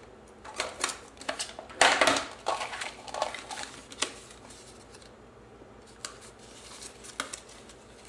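Scored cardstock being folded and pressed together by hand into a small box, with crinkling, rustling and light taps. The loudest burst of handling comes about two seconds in, and after about four seconds only a few scattered taps remain.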